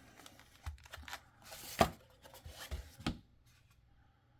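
Cardboard box and card packaging being handled: a series of light clicks and taps with a brief papery slide about a second and a half in, going quiet for the last second.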